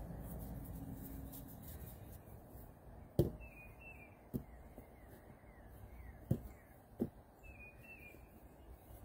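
Small birds chirping in short repeated calls, over four short knocks (the loudest about three seconds in) as pizza dough is patted and pressed by hand on a floured flat-top griddle.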